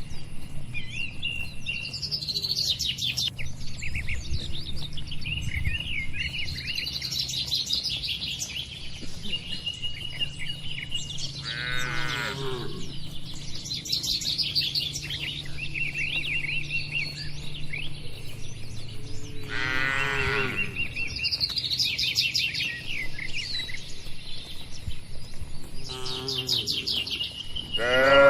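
Small birds chirping and twittering throughout, while cattle moo three times, each a short call of about a second: one about a third of the way in, one about two-thirds in, and one near the end.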